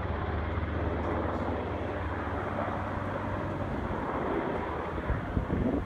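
Distant firefighting aircraft droning steadily: a water-dropping helicopter and a fixed-wing air tanker working over the wildfire. The low hum weakens after about two seconds, and wind buffets the microphone near the end.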